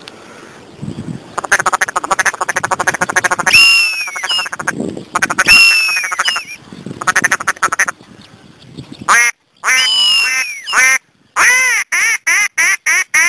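Ducks quacking. Raspy, rattling chatter alternates with long quacks that fall in pitch. Near the end comes a quick run of short quacks, each cut off abruptly.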